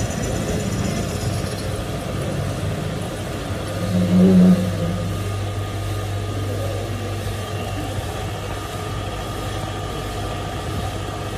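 Metal lathe running with a piston turning in its four-jaw chuck, a thin high whine from the cut in the first second or so. About four seconds in there is a short, louder hum, and a steady low hum goes on after the chuck has stopped.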